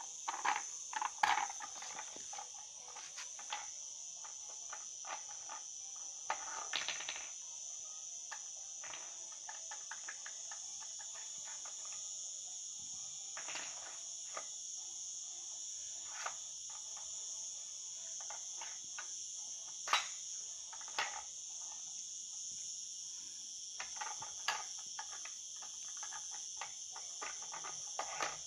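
Steady high-pitched chirring of insects, typical of a cricket chorus, with irregular short clicks and crunches scattered through it; the loudest come about a second in and about two-thirds of the way through.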